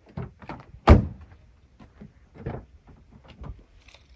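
Irregular knocks and bumps, with one heavy thump about a second in.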